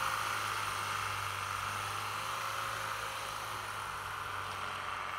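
Mahindra Thar's engine idling steadily, a low hum under a steady hiss.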